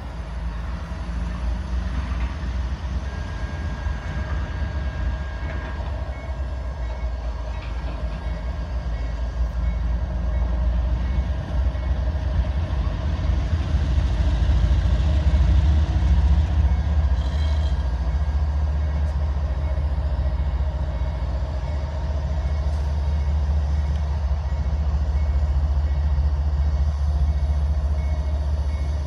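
A train rolling past with a heavy, steady low rumble, growing louder to a peak about halfway through and then holding.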